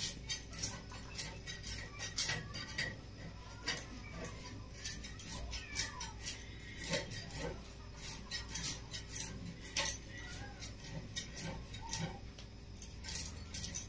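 A fish being scaled by drawing it against an upright bonti blade: a run of quick, uneven scraping strokes of scales on metal.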